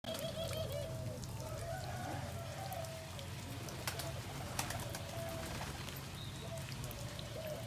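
Domestic pigeons cooing in repeated wavering calls while the flock pecks grain off a dirt floor, with a few sharp clicks of beaks striking the ground.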